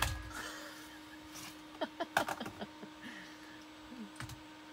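Scattered clicks and knocks of tools and plumbing hardware being handled near a water pump and pressure tank, starting with a thump and then a cluster of sharp clicks about two seconds in, over a steady low hum.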